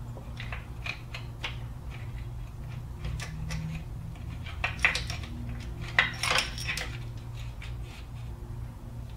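Light metallic clinks and taps of small engine parts and a bolt handled at the camshaft sprocket, with a short clatter of metal about five and six seconds in, over a steady low hum.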